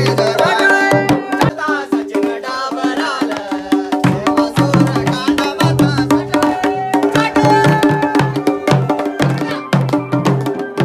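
Folk procession drumming: big barrel drums (dhol) struck in a fast, driving rhythm, with a held reedy keyboard melody sounding over them.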